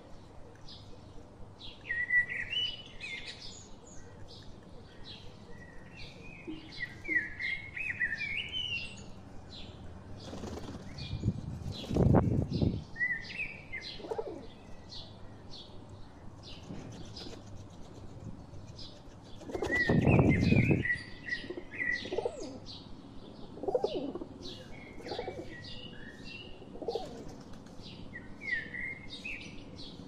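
Rock pigeons feeding on grain on concrete, their beaks tapping in rapid short ticks, with two loud bursts of wing flapping. Bird chirps come in several short spells, with a few low pigeon coos.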